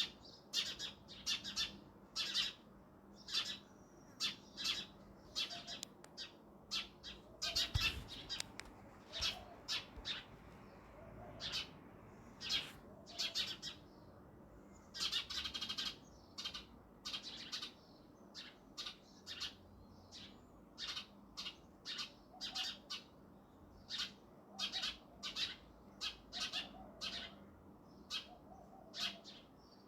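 House sparrow chirping: short, sharp chirps repeated at an irregular pace, with a longer run of rapid chattering about halfway through.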